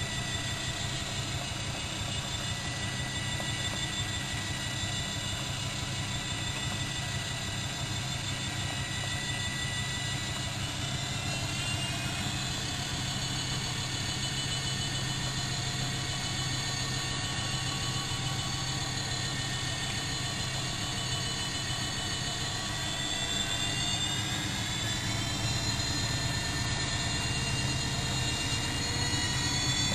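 Bosch WFM3010 front-loading washing machine's drum motor running with a steady whine. The whine rises in pitch about 11 seconds in and again from about 23 seconds, growing louder toward the end as the drum speeds up.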